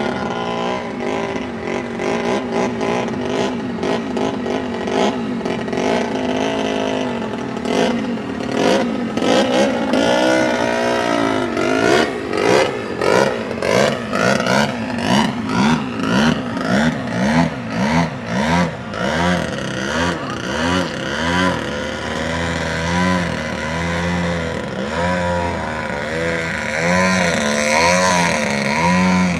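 RC model airplane motor running, its pitch rising and falling over and over as the plane flies, with rough crackling noise throughout.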